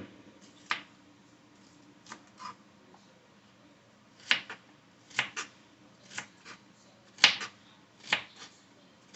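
Scattered light knocks and clicks at irregular intervals, about a dozen in all, from vegetables and kitchen items being handled and set down on a counter.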